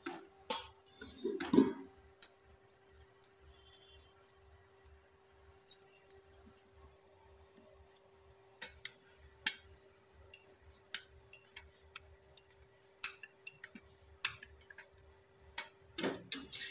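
Glass bangles on a moving wrist clinking and chinking in scattered sharp clicks, over a faint steady hum.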